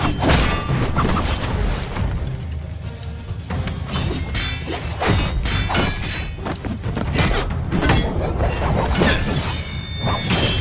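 Sword-fight sound effects from an animated fight: a rapid series of sharp blade clashes and heavy impact hits, over loud background music.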